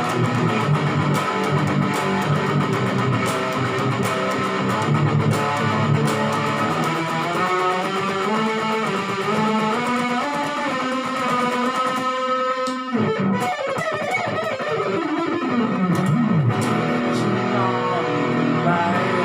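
Electric guitar playing a lead solo over a backing track with bass, mostly held, sustained notes. About two-thirds of the way in comes a quick run of rapid notes, followed by long falling and rising pitch glides.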